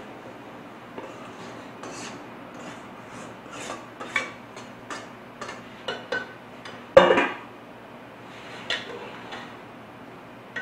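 A metal spoon clinking and scraping against a stainless-steel bowl and an aluminium pot as rice is scraped into the pot to fry with the beans. Light, irregular clinks, with one louder clatter about seven seconds in.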